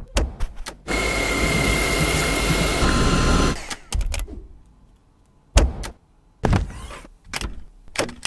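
A vacuum cleaner's motor running for about two and a half seconds with a steady whine. Sharp clicks come before it, and a few separate thumps follow it.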